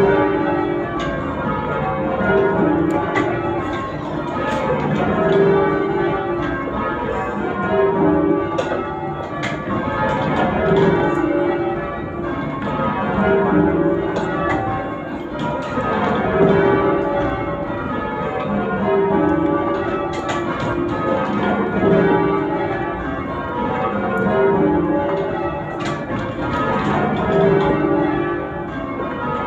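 A heavy ring of ten church bells ringing rounds, heard from the ringing chamber. The bells were cast by Thomas Janaway (1772) and John Warner & Sons (1879), with a tenor of 31 cwt in C#. The strikes follow one another in an even, unbroken rhythm, and the sound swells and eases about every two and a half to three seconds as each row comes round.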